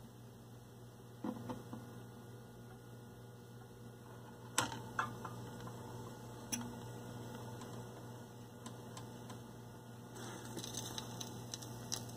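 Phonograph record surface noise: a faint steady hum with scattered clicks and pops, a few sharper ones about one, four and a half and six and a half seconds in, and thicker crackle near the end.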